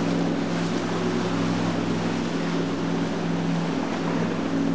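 Motorboat engine running steadily at speed, a low even hum, over the rush and spray of water thrown up by the hull and its wake.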